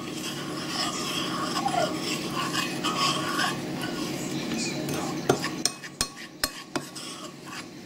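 Metal fork stirring thick icing in a ceramic bowl, scraping against the bowl, followed by a few sharp clicks of metal on the bowl near the end.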